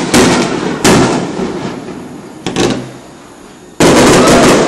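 Aerial firework shells bursting: four sharp bangs, each trailing off in a long echo, the third one smaller. The last and loudest comes near the end and runs straight into a sustained noisy tail.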